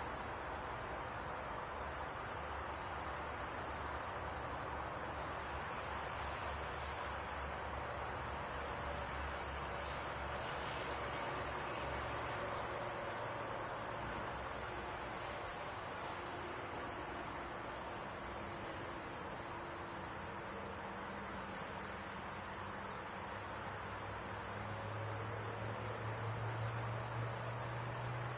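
A steady, unbroken chorus of insects such as crickets, shrilling high-pitched throughout.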